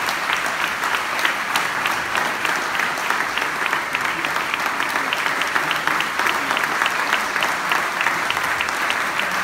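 Audience applauding, many hands clapping steadily at a full, even level.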